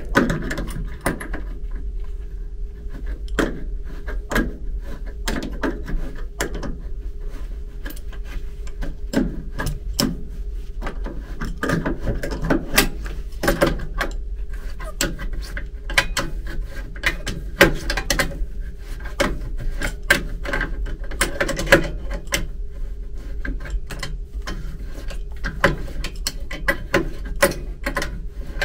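Metal parts and tools being handled: irregular clicks, knocks and clinks throughout, over a steady low hum.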